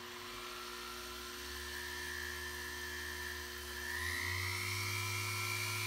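Flex shaft rotary tool running a 2 mm drill bit into a pebble, a steady motor whine that steps up in pitch about four seconds in as the motor speeds up.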